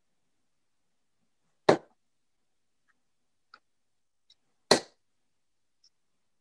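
Two steel-tip darts thudding into a Unicorn Eclipse Pro bristle dartboard, one after the other about three seconds apart, each a single sharp hit.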